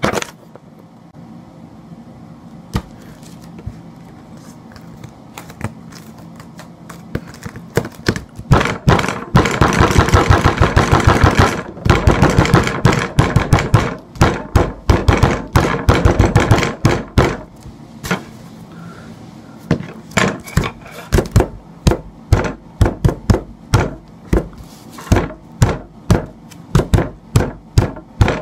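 Repeated thumps of a fist pounding material flat on a tabletop: a few single knocks, then a long run of rapid blows, then slower single blows, about one or two a second.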